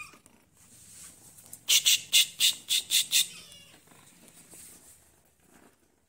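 Cat giving a quick run of about seven short, harsh, high-pitched cries, starting about two seconds in, then fainter rustling.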